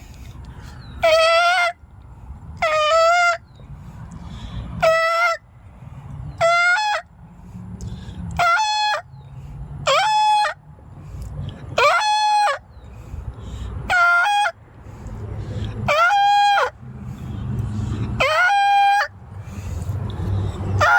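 Prank bird mating call: a loud, honking call repeated about every two seconds, each call about half a second long and the same shape every time.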